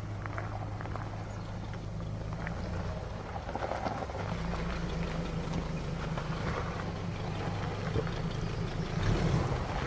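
Hummer H3 engine running at low revs as the truck crawls over rocks, a steady low hum that strengthens a little about four seconds in, with scattered crunches of stones under the tyres.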